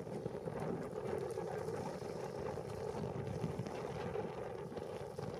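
Steady rushing of river rapids, with wind buffeting the microphone.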